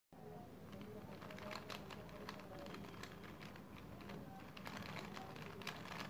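A plastic 3x3 Rubik's cube being turned quickly by hand: its layers click and clack in quick, irregular runs, over a faint steady hum.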